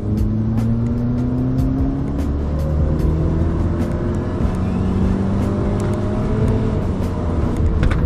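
Stage 3 tuned Skoda Octavia's turbocharged 1.8 TSI four-cylinder accelerating hard, its engine note climbing in pitch again and again as the car picks up speed, heard from inside the cabin.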